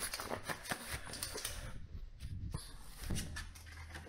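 A pug moving about on a wooden floor: scattered light clicks and taps of claws and paws, thinning out after about two seconds. A low steady hum joins in the last second.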